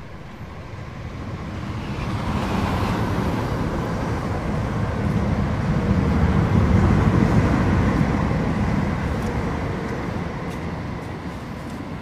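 A train passing on the nearby railway line: a rumble with a steady whine that swells over several seconds, is loudest about six to eight seconds in, then fades away.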